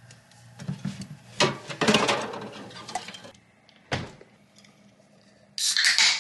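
Cans clinking and rustling as one is pulled out of a mini fridge, then a single thud about four seconds in. Near the end a drink can is cracked open with a sudden sharp hiss.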